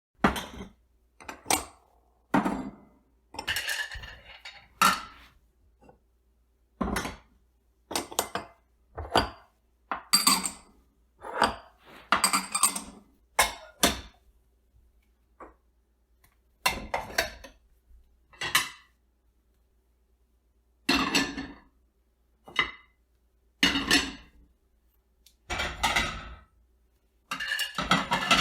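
Dishes being put away: a long run of separate clinks and clatters as plates, bowls and cutlery are set down and stacked, irregularly spaced with short pauses between them.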